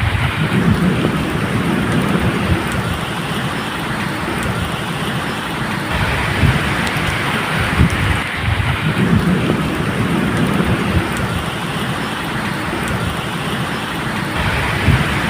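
Steady medium rain falling, with low rolling thunder rumbling underneath that swells and fades several times.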